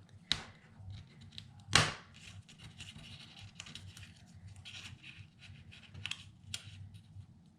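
Paper die-cut pieces being handled and shuffled on a tabletop: light rustling and scraping, with a sharp tap just under two seconds in and a few smaller taps later on.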